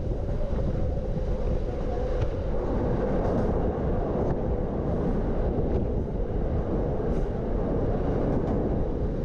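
Norokko sightseeing train running steadily, heard from inside its passenger car: a continuous rumble of wheels on rails with a few faint ticks.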